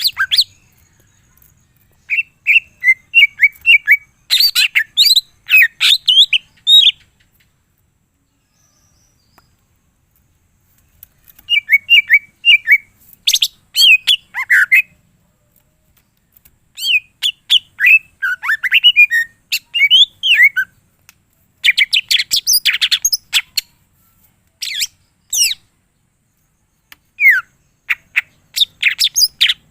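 A green leafbird (cucak ijo) singing in loud bouts of rapid chirps and quick down-slurred whistled notes, each bout a few seconds long with short silent pauses between.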